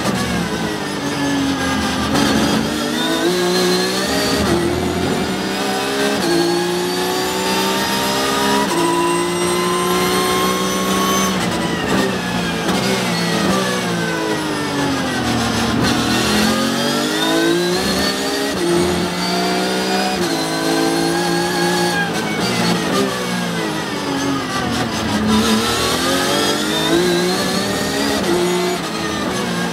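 Porsche 911 GT3 Cup car's flat-six engine heard from inside the cockpit at racing speed: revs climb in long pulls through the gears and drop sharply as the car slows for corners, once around the middle and again near the end.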